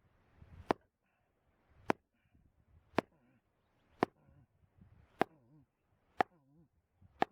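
Wood being chopped: seven sharp blows, evenly spaced about a second apart.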